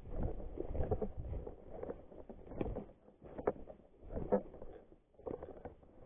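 Footsteps crunching through dry fallen leaves, in an uneven walking rhythm.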